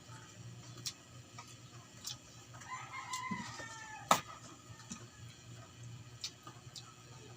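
A rooster crowing once, faint, about three seconds in, its call gliding down at the end. Sharp clicks and taps come in between, the loudest about four seconds in.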